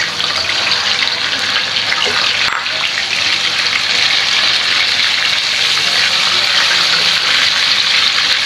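Marinated shrimp frying in hot oil in a frying pan, a steady sizzling hiss that grows a little louder over the first few seconds.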